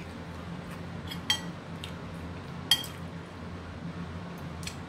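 A metal spoon clinking a few times against ceramic plates and bowls during a meal, with two sharper clinks about a second and a half apart, over a steady low hum.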